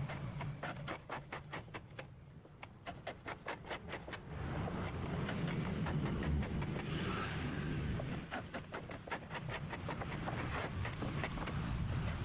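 Wood being smoothed by hand: quick, short scraping strokes, about four or five a second. A steady low hum joins in about four seconds in.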